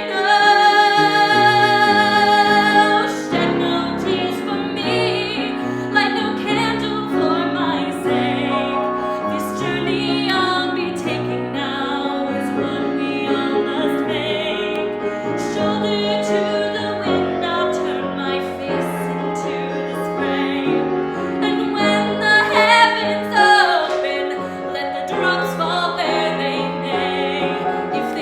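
A woman's voice sings a musical-theatre ballad in a classical style, with piano accompaniment. She holds one long note for about the first three seconds, then goes on through a phrase of changing notes.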